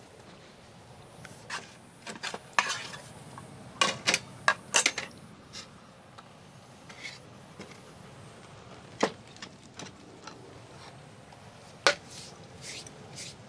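Utensils clinking and scraping against pots and dishes during camp cooking. The strikes come as scattered sharp clinks at irregular intervals, clustered about four seconds in, with single louder ones near the middle and near the end.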